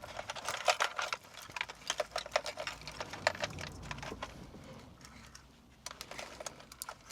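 Wiring harness being handled: plastic connectors and cables clicking and rattling lightly in quick, irregular small clicks, thinning out for a moment past the middle.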